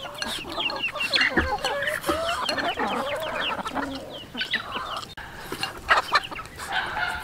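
Chickens clucking close by, with many short, high chirps running through, over a few light clicks of eating.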